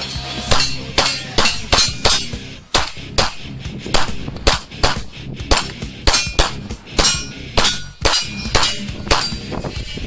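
A rapid string of pistol shots, about twenty at roughly two a second, many followed by a short metallic ring.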